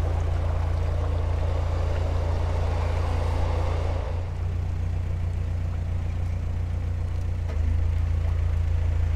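Narrowboat's diesel engine running steadily at low revs, a deep unbroken hum heard from on board. A rushing noise over the first few seconds fades out about four seconds in.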